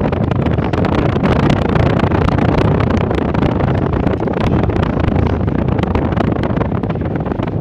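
Loud wind buffeting the microphone: a steady rush with many small crackles.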